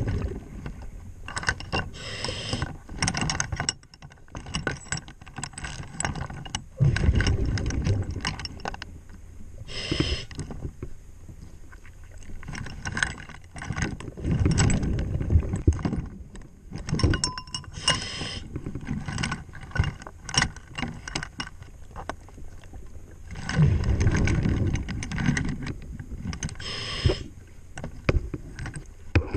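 A diver's breathing heard underwater: long rushing surges of exhaled bubbles every several seconds. Between them come many short clicks and scrapes of gloved hands and tools against the saildrive housing.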